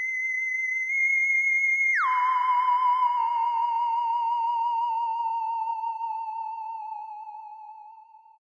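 A high, theremin-like electronic tone is held steady for about two seconds. It then slides down about an octave and wavers with vibrato as it slowly fades out, the sci-fi 'flying saucer' sound.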